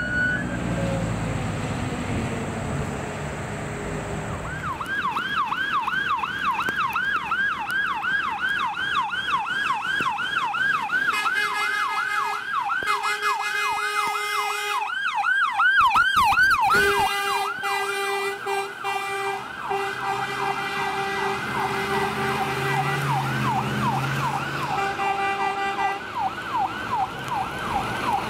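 Emergency-vehicle sirens: a wail rising at the start, then a rapid electronic yelp at about three sweeps a second with repeated horn blasts over it from about a third of the way in, and one faster, higher sweep about halfway through.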